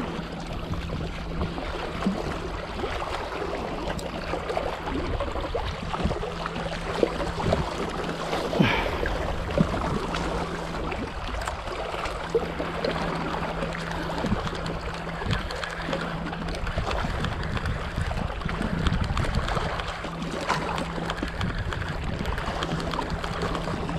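Small sea waves lapping and splashing against breakwater rocks, with a steady low hum running underneath that drops out for a few seconds past the middle.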